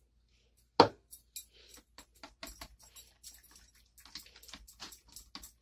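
A balloon whisk beating yogurt in a glass bowl: a sharp knock about a second in, then quick, irregular clicking and tapping of the whisk against the glass as the mixture is stirred.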